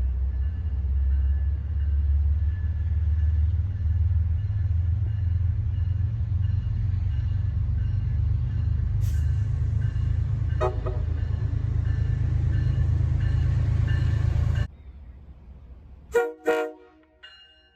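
Train passing close with a heavy low rumble, and a short train horn blast about ten seconds in. After a sudden cut, two quick toots of a train horn near the end.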